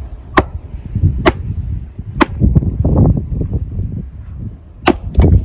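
Kharkiv Forge axe chopping dry wood on a chopping block: sharp, loud strikes, three about a second apart, then a pause and two quick ones near the end. A low rumble runs between the strikes.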